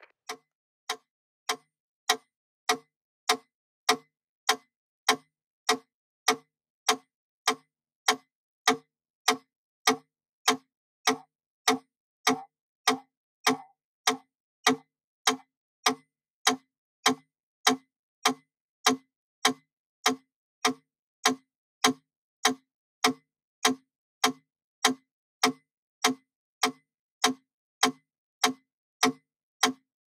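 Wooden mechanical pendulum metronome ticking steadily at 100 beats per minute, a sharp click about every 0.6 seconds.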